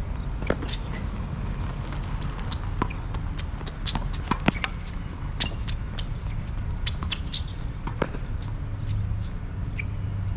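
Tennis rally on an outdoor hard court: racket strikes on the ball come as sharp knocks a second or few apart, over a steady low hum, with many lighter ticks between them.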